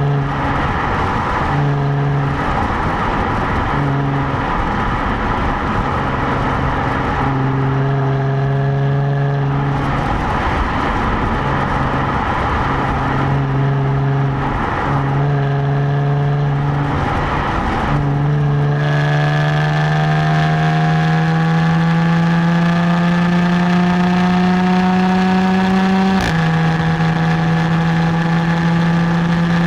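Stock exhaust of a 2017 Jaguar F-Type, picked up at the rear plate, cruising at steady revs and broken every second or two by brief rushes of noise. About two-thirds in the revs climb slowly and evenly, then drop suddenly near the end as it shifts up.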